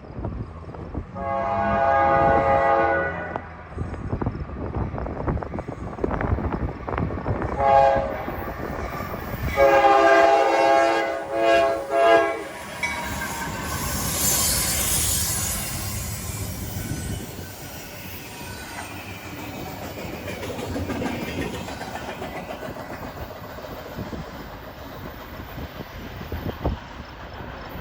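CSX freight locomotive horn sounding a long blast, a short one, then another long one about ten seconds in, as the GE AC44CW and ES44AH units pass. Then the train's cars roll by with steady wheel noise and clickety-clack over the rail joints, with a brief high squeal partway through.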